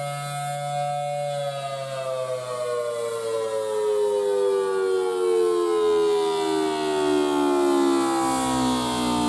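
Federal Signal Thunderbolt 1000T mechanical warning siren sounding the Attack (wailing) signal. Its two-note chord holds high for about a second and a half, then falls steadily in pitch, growing louder as the rotating horn swings round toward the listener.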